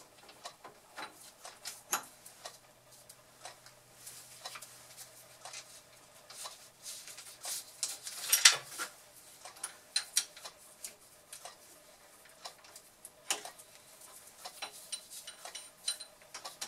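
Scattered light clicks and clinks of a change gear being fitted to the end gear train of a Boxford lathe, with one louder knock about eight seconds in.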